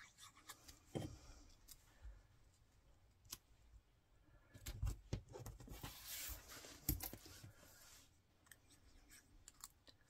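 Faint handling sounds of small cardstock pieces being glued and pressed onto a paper box: soft rustling and tapping of paper, with a few light clicks.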